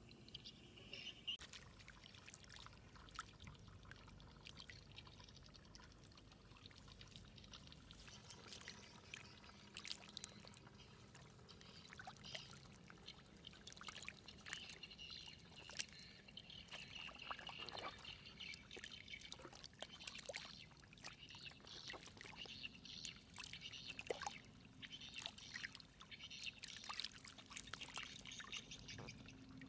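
Flowing water pouring and trickling, with many small splashes and clicks.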